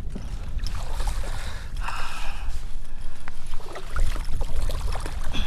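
Water sloshing and splashing around a fishing kayak, with scattered clicks and knocks and a steady low wind rumble on the microphone.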